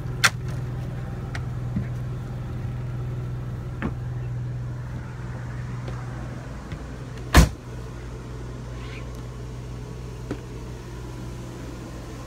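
Steady low hum of the motorhome's running Onan generator, with a few light clicks and knocks of someone stepping in through the RV entry door. One loud sharp knock comes about seven seconds in, and the hum carries on more quietly afterwards.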